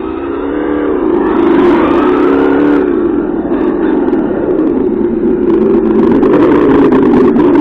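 Simulated car engine sound from the RC car's ESS sound-module speaker, its pitch rising and falling with the throttle like revving and shifting. It grows louder as the car comes back in close near the end.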